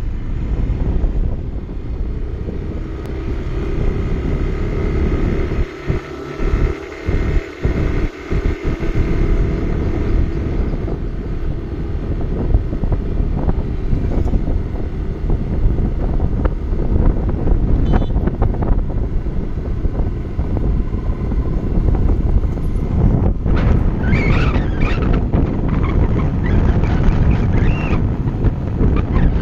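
Wind buffeting the microphone of a phone filming from a moving two-wheeler, over the steady rumble of the bike and its tyres on the road. The rumble drops out briefly a few times about six to eight seconds in.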